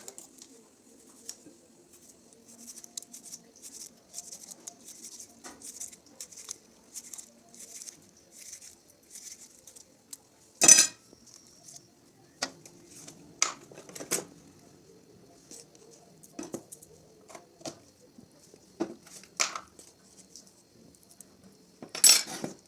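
Cutlery clinking and scraping against dishes in a string of light clicks, with a louder knock about ten seconds in and another near the end.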